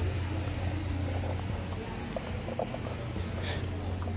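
Cricket chirping steadily, a high-pitched chirp repeating about three times a second, over a low steady hum.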